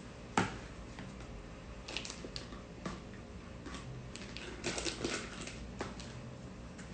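Silicone spatula scooping a soft filling from a bowl and pressing it into a plastic piping bag set in a cup: a sharp knock about half a second in, then scattered small taps, scrapes and squishy plastic sounds.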